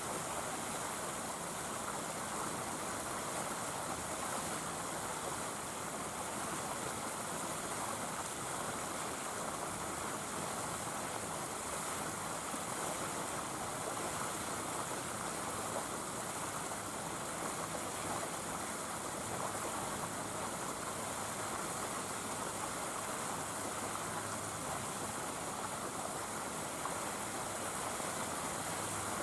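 Steady rushing hiss with no distinct sounds standing out.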